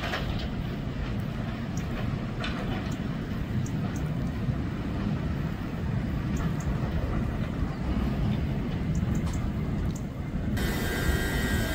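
Electric train running on the rails: a steady low rumble with scattered faint clicks. About ten and a half seconds in, the sound cuts abruptly to a steadier hum with thin high whining tones.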